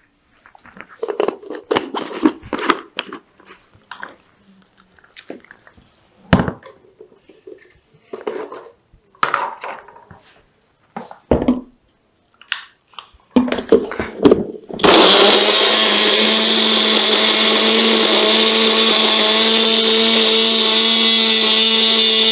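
Clicks and knocks as the blender jar is handled and fitted onto its base. About two-thirds through, a small personal blender starts and runs steadily, grinding papaya roots with a little water.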